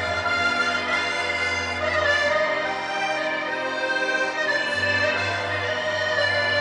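Instrumental music with long held notes and slowly changing chords.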